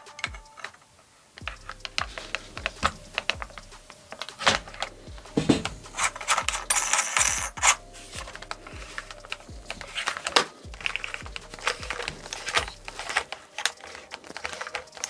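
Plastic airsoft rifle's stock and buffer tube being unscrewed and handled: a long run of irregular clicks, ticks and knocks of plastic parts.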